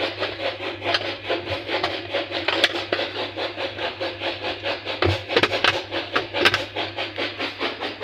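Plastic washing-machine pulsator being worked and turned by hand against the tub, giving a fast, even run of rubbing clicks, several a second. The pulsator has jammed on its shaft.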